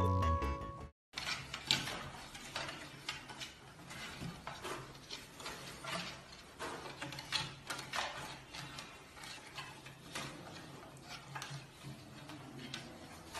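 Music cuts off about a second in; then a giant panda cub climbing a wooden crib's rails makes irregular knocks, clicks and rattles against the bars, over a faint steady low hum.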